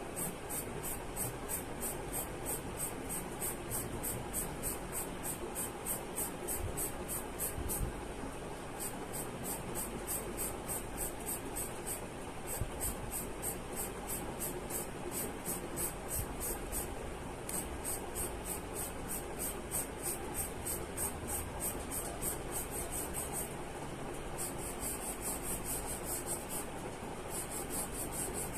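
Charcoal pencil scratching across drawing paper in quick, repeated flicking strokes, about three or four a second, in runs broken by short pauses.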